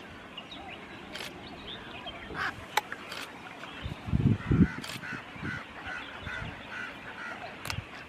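Mixed chorus of many waterbirds calling at a breeding colony, with short overlapping calls and a run of evenly spaced calls, about three a second, through the second half. A few sharp clicks and a brief low rumble about halfway through, the loudest moment, stand out over the calls.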